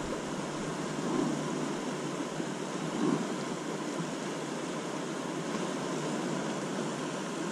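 Steady rush of a river running in whitewater rapids, its flow swollen by water released from the dam upstream.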